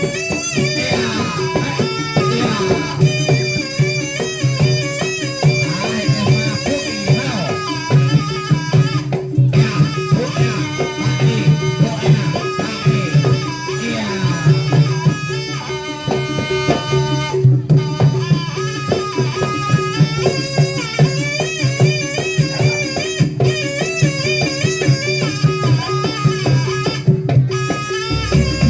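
Traditional folk music: a steady low drone held under a wavering, ornamented melody line.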